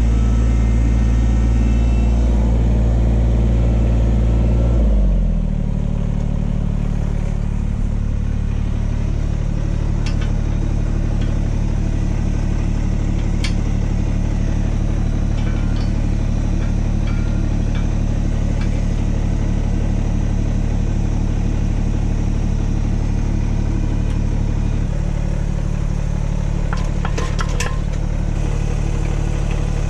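Kubota compact tractor engine running, at higher revs at first and dropping to a steady idle about five seconds in. A few light metal clinks near the middle and end as the hitch pins of a three-point landscape rake are fitted.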